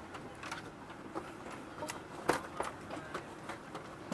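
Airliner cabin at the gate: scattered light clicks and knocks from people moving and handling things, the loudest about two and a half seconds in, over a low steady background noise.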